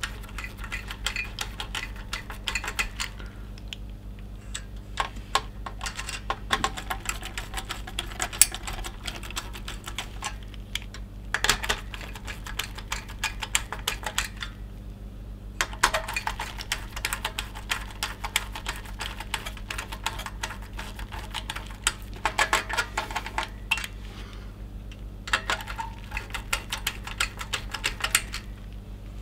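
Screwdriver turning the spring-loaded mounting screws of a CPU cooler, making rapid clicking in bursts with short pauses between them.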